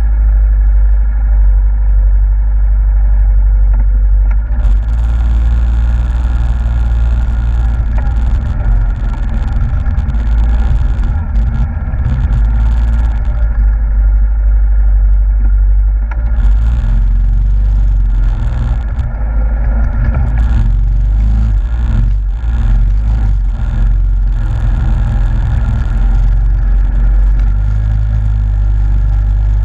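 Yamaha Grizzly ATV's single-cylinder engine running steadily under way at a cruising pace. Stretches of hiss come and go, and a few knocks and jolts fall about two-thirds of the way through.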